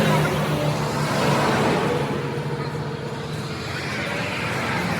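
Vehicle engine running steadily under road noise, with a faint low hum.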